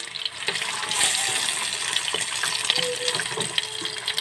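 Sliced sweet potatoes frying in hot oil in a pan: a steady sizzling hiss with many scattered small crackles.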